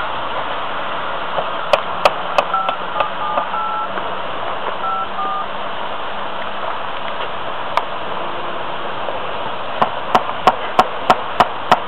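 Steady background hiss, with a short run of two-tone telephone keypad beeps, like a number being dialled, a few seconds in. Near the end there is a run of sharp clicks, about three a second.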